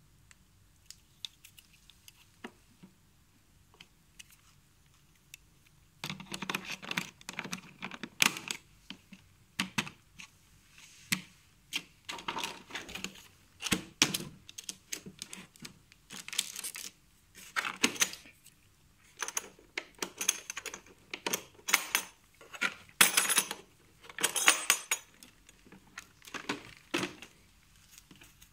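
Hard plastic Metabo tool cases being handled: a few faint clicks at first, then from about six seconds in a busy run of clicks, clatter and knocks as lids and plastic parts are moved, opened and closed.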